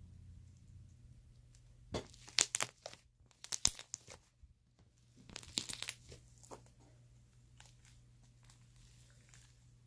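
Slime being stretched and squeezed by hand, crackling and popping in three short bursts.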